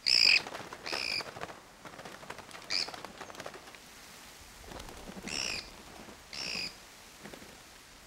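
A blue jay's harsh distress screams, five short calls spread over several seconds, with rustling and wing flapping between them as it struggles in the grip of an accipiter hawk.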